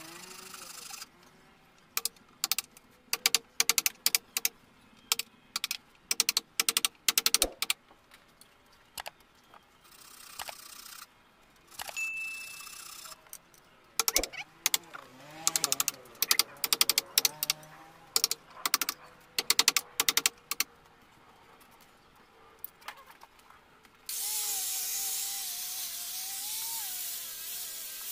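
Hammer blows on the joints of a teak window frame, struck in quick runs of sharp knocks. A brief high ding about halfway through, then near the end a corded hand power tool starts and runs with a steady noise and a wavering whine.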